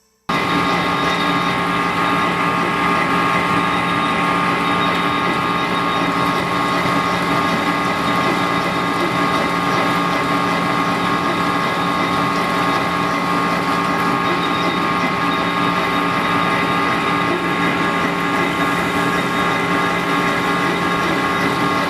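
Cable-making factory machinery running steadily, a constant hum with several steady whining tones over a noisy mechanical hiss, cutting in abruptly at the start.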